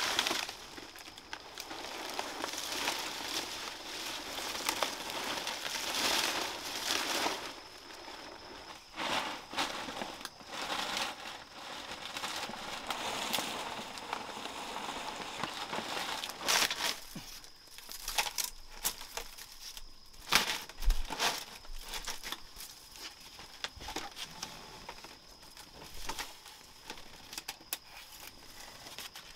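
Rustling and crinkling of material being handled, dense for the first several seconds, then sparser with scattered sharp snaps and clicks. A faint steady high-pitched tone runs underneath.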